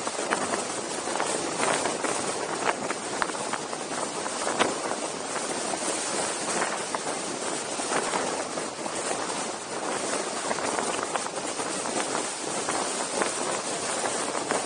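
Wind rushing over the camera microphone: a steady noise with scattered sharp clicks through it.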